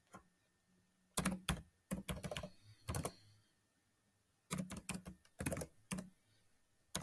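Typing on a computer keyboard: two short runs of keystrokes with a pause of about a second between them.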